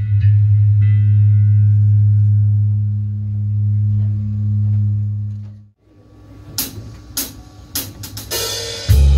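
Live rock band: a low note held on the electric bass rings on and fades away a little past halfway. Then come separate drum hits and cymbal crashes, and a cymbal roll that leads into the full band coming in loudly near the end.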